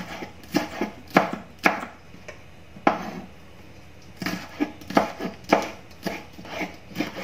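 Kitchen knife slicing red and green chillies on a bamboo cutting board: a string of knife strikes on the wood, about two a second, with a short pause about three seconds in.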